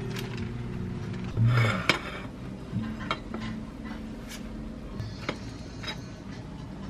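Kitchen utensils handling food on plates: a wooden spatula and chopsticks knocking, clinking and scraping against dishes in scattered short strokes. There is a louder clatter about one and a half seconds in, and a low steady hum in the first second or so.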